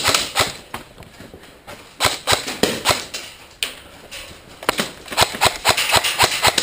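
Footsteps of a player on the move, irregular at first and then quickening to a steady run of about four steps a second about two-thirds of the way in.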